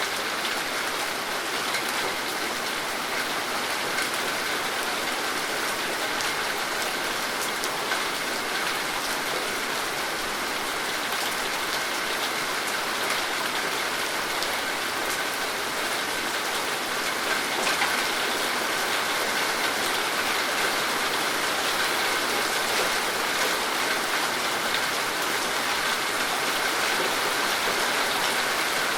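Steady rain falling, a constant hiss of water with many small drop impacts ticking on a surface.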